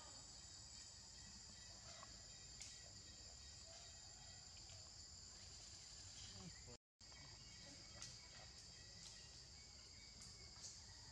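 Faint, steady chorus of forest insects, a constant high buzz at two pitches, with a few small clicks; the sound cuts out briefly about seven seconds in.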